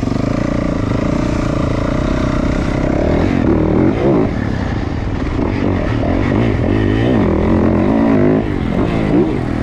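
Dirt bike engine pulling away from near standstill. It runs fairly steadily for the first few seconds, then revs up and down repeatedly as the bike accelerates and shifts through the gears.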